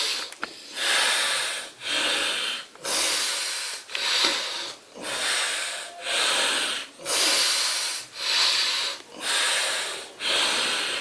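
Loud, steady breathing through the nose, one breath in or out about every second in an even rhythm: anulom vilom alternate-nostril breathing, one nostril held shut with the fingers.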